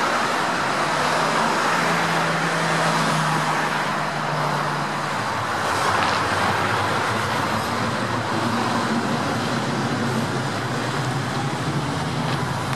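Steady road traffic: cars passing on a multi-lane road, with the low drone of a heavy vehicle's engine running through much of it.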